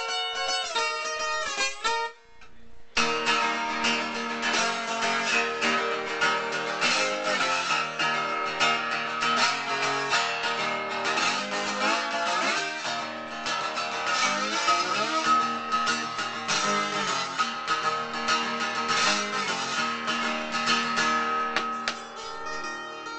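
Guitar playing a dirty blues in E: a short opening phrase, a brief pause about two seconds in, then steady strummed and picked playing with notes that bend in pitch. It gets quieter near the end.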